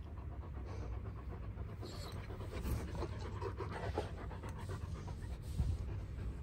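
One-year-old Kangal dog panting close by in quick, rhythmic breaths, strongest in the middle. A low thump about five and a half seconds in.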